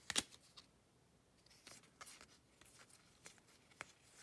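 Faint handling of baseball trading cards: a sharp click just after the start, then a few soft scattered ticks and rustles as the cards are flipped through.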